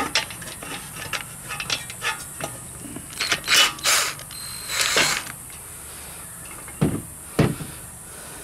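Recoil starter pulley and its ratchet dogs being worked loose and pulled out of a Briggs & Stratton starter housing by hand: a run of small plastic-and-metal clicks, louder scraping rattles about three to five seconds in, then two dull knocks.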